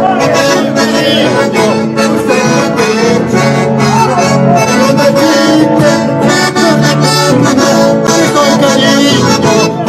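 Lively dance music with a steady beat.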